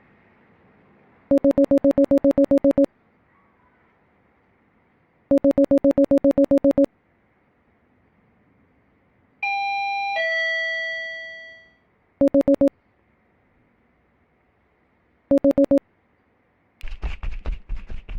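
Electronic door intercom: a fast trilling ring in two bursts of about a second and a half, then a two-note ding-dong chime falling from high to low, then two short bursts of the trill. Near the end a quick run of knocking on a door begins.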